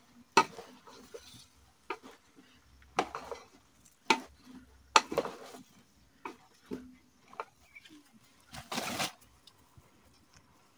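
A spoon stirring in a metal cooking pot, knocking and scraping against its sides in a series of short, sharp clacks spaced a second or so apart, with a longer scrape about nine seconds in.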